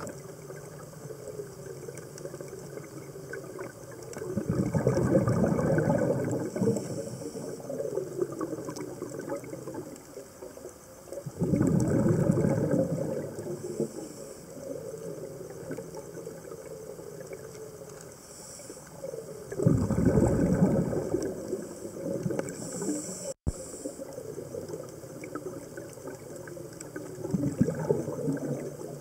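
Scuba diver's exhaled breath bubbling out of the regulator, heard underwater: four bubbling rushes about seven to eight seconds apart, each lasting about two seconds, with a fainter regulator hiss between them.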